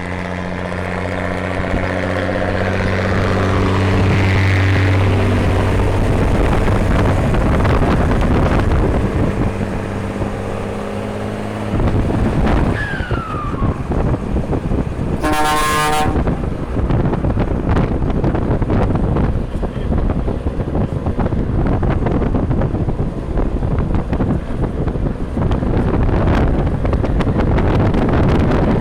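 A long-nosed ('bicudo') truck's diesel engine running loud with a steady low drone. From about twelve seconds in, a steady rushing noise takes over. A short horn blast comes about fifteen seconds in.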